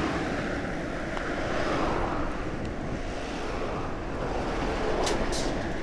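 Wind rushing over the microphone of a bicycle-mounted camera while riding, mixed with road and traffic noise. There are two short clicks about five seconds in.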